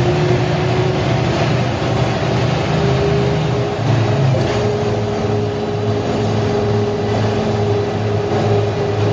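Mercedes-Benz O345 Türk city bus's diesel engine running as the bus drives: a steady low drone with a thin whine above it that steps up to a higher, steady pitch about four and a half seconds in.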